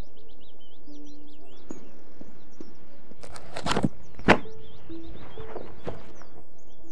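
A few sharp knocks of things being handled, three of them about three to four and a half seconds in, the last and loudest a single hard knock. Under them are soft held music notes and birds chirping.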